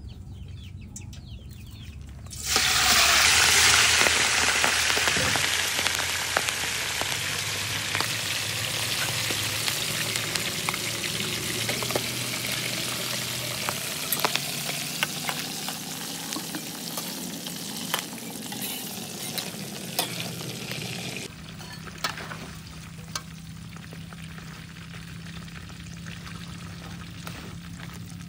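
Whole giant river prawns tipped into hot oil in a steel wok set off a loud sizzle about two seconds in, which slowly dies down as they fry. A metal spatula scrapes and clinks against the wok as they are stirred. About three-quarters of the way through, the sizzle drops suddenly to a quieter frying with a low steady hum.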